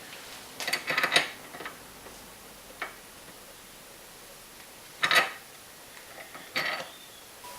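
A few short scratchy strokes and light clicks of a pencil marking the OSB top of a workbench: a quick cluster about a second in, a single tick near three seconds, then two separate strokes later on.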